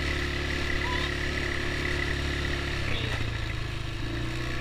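Small ATV engine running steadily at low revs, its note changing about three seconds in.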